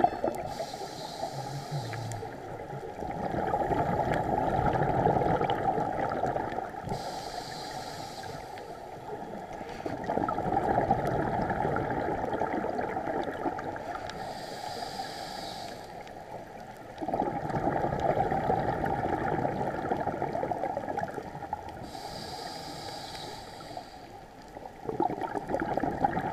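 Scuba diver breathing through a regulator underwater: a short hiss on each inhalation, then a longer gurgling rush of exhaled bubbles, repeating about every seven seconds for four breaths.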